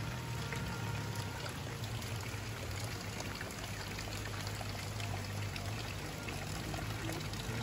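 Water pouring and trickling steadily: a continuous, even splashing rush of running water after rain.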